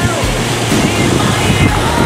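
Background music with a gliding melody, over the wash of surf on a pebble beach.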